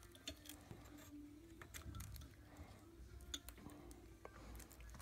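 Faint scattered clicks and taps of metal parts as a piston pin is pushed through the piston and connecting rod of a small four-stroke ATV engine, over a faint low hum.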